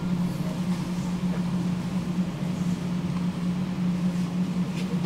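Steady interior noise of a tram, a constant low hum over an even background noise.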